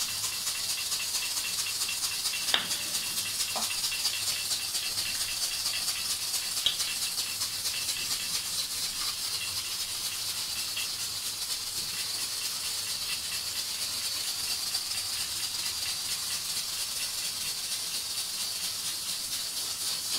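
A steady high hiss, with a few faint knocks as a wooden rolling pin rolls out chapati dough on the counter.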